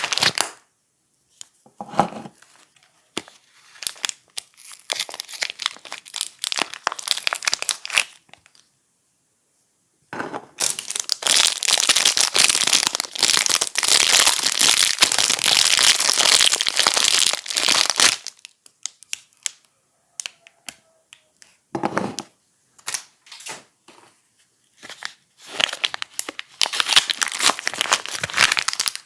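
Soap packaging being unwrapped by hand: wrappers crinkling and tearing in bursts, with one long stretch of continuous crinkling in the middle, a brief silence just before it and a quieter gap after it.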